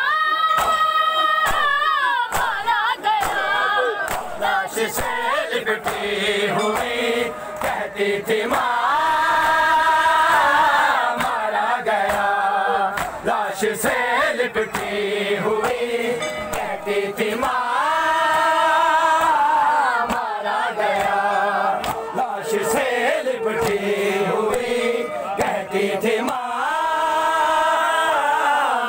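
A group of men chanting an Urdu noha (mourning lament) together, in long held phrases that come round about every nine seconds. Sharp strikes run underneath, the slaps of chest-beating (matam).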